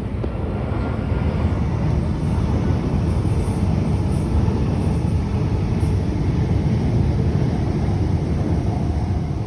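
Loud, steady low rumble of a large passing vehicle. It builds over the first couple of seconds and eases a little near the end.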